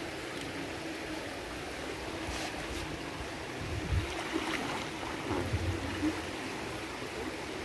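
Water in a swimming pool splashing and lapping as a small child paddles and kicks in inflatable armbands: a steady wash with a few small splashes through the middle.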